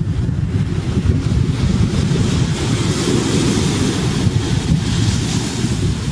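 Wind buffeting the camera microphone in a heavy, uneven rumble, over the hiss of ocean surf breaking on the beach; the surf wash grows louder from about a second and a half in.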